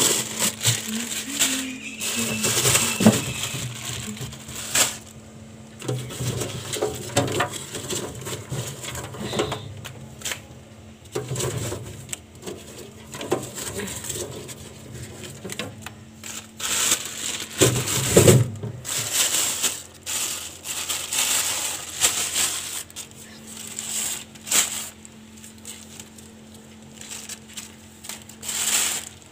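Plastic bags and newspaper rustling and crinkling in irregular bursts as a bundle of long beans is pulled out of a fridge vegetable drawer and handled, over a low steady hum.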